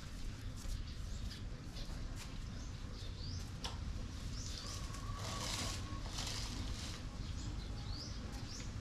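Small birds chirping over and over, short rising calls, above a steady low rumble, with scattered clicks and a brief rustle about five seconds in.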